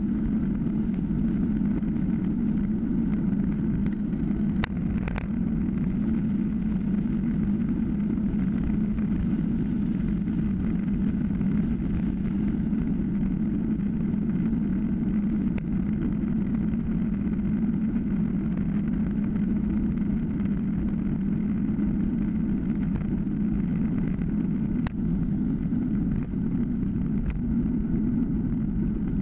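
Steady rumble of wind and tyre noise on a handlebar-mounted action camera on a moving time-trial bicycle, with a few faint clicks, two about five seconds in and one near the end.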